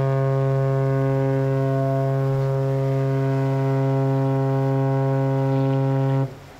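Ship's horn on a large tanker sounding one long, steady, deep blast that cuts off sharply about six seconds in. It is a warning to a small fishing skiff that will not move out of the ship's path in the shipping lane.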